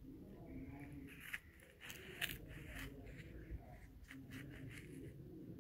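Short rustling and clicking scrapes in two clusters, about a second and a half in and again around four seconds, over a steady low rumble.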